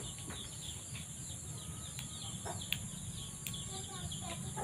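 Rural yard ambience: small birds chirping over and over above a steady high hiss, with a few sharp soft clicks as water spinach stems are snapped by hand. Near the end, chickens start clucking.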